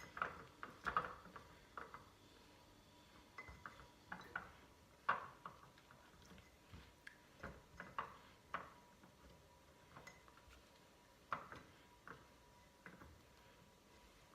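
Soft, irregular taps and clinks of lemon slices and fresh ginger pieces being set by hand into a glass jar.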